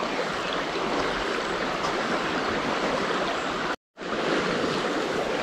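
River water running steadily, an even rushing flow. It drops out to silence for a moment about four seconds in.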